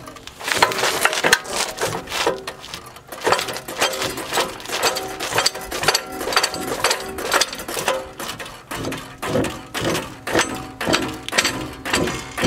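Repeated hammer blows on steel front-suspension parts, about two strikes a second, each one ringing.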